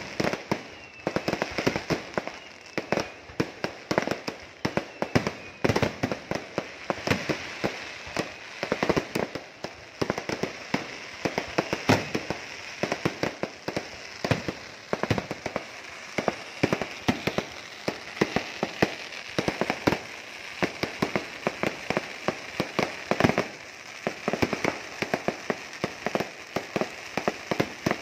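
Fireworks display: a dense, continuous barrage of firework bangs, several a second with no let-up, as aerial shells burst overhead.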